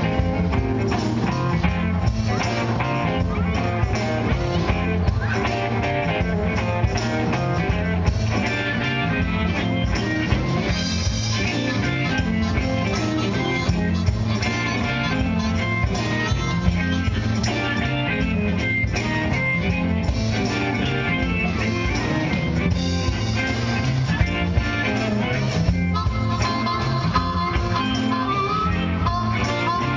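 Live band playing an instrumental passage: guitar over bass and drums with a steady beat.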